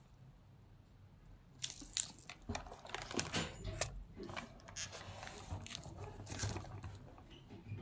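Crinkling, rustling and clicking handling noises of a new handbag and its packaging being unpacked, starting about a second and a half in and going on irregularly.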